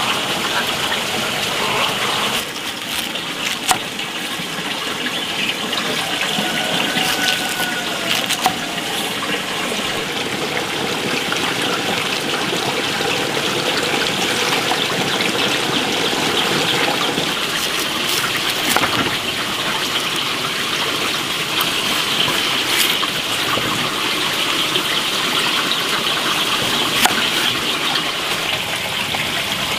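Steady rush of flowing water, with a few sharp knocks of a knife on a wooden cutting board as pineapple is sliced.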